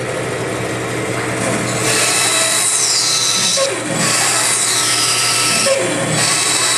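A 17-inch bandsaw running steadily, its blade making three short release cuts into a piece of wood in a row from about two seconds in. Each cut lasts about a second and a half and ends with a falling pitch.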